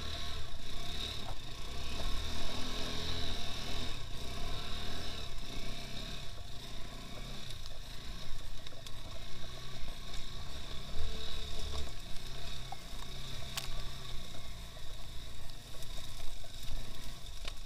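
Engine of a two-wheel-drive off-road motorcycle running under way, its level rising and falling with the throttle.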